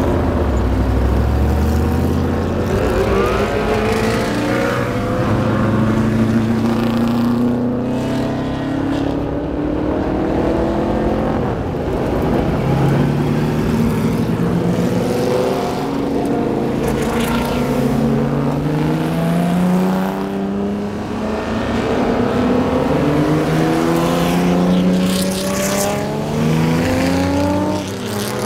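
A procession of vintage race cars accelerating past one after another, loud open engines rising in pitch through the gears and dropping back at each shift, with several cars often heard at once.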